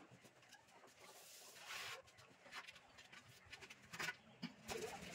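Very quiet, with faint scattered light taps and scrapes; a few slightly louder clicks come about four seconds in.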